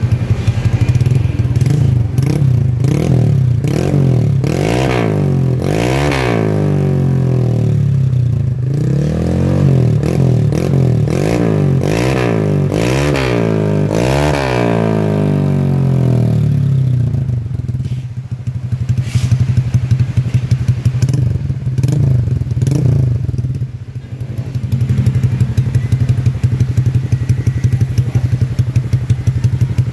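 Honda Vario 150 scooter's single-cylinder engine, bored up with a 59 mm piston, breathing through a CLD Racing C3 round aftermarket exhaust. It idles steadily and then is revved in a quick run of repeated throttle blips, each rising and falling. It settles back to idle with a few lighter blips and runs on at idle near the end.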